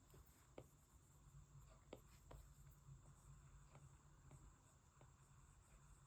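Near silence: faint, scattered taps of a stylus on a tablet screen, several irregular ticks over a steady low hum.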